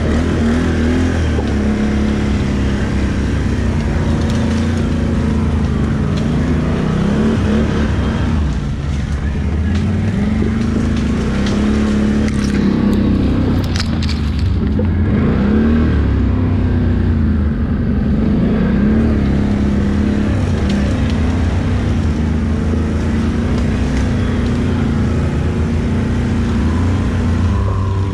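ATV engine running continuously under changing throttle, its pitch rising and falling again and again as the rider gives and eases off the gas.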